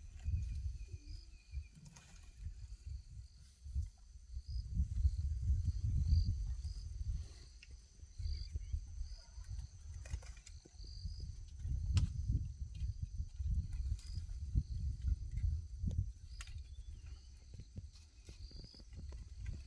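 Scattered sharp cracks and snaps of tree branches being broken by an elephant, over insects chirping steadily and a fluctuating low rumble of wind on the microphone, which is the loudest part.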